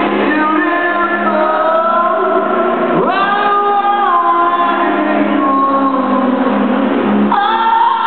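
Live rock band playing with a sung vocal, heard from far back in a large hall. The vocal holds long notes and swoops up into a new note about three seconds in, and again near the end.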